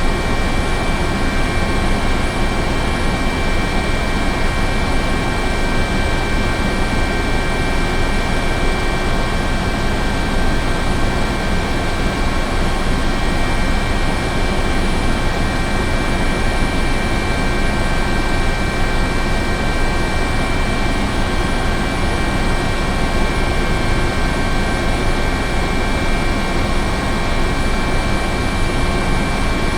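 Helicopter running steadily: a dense, even engine and rotor noise with a constant high whine over it, unchanging in level or pitch.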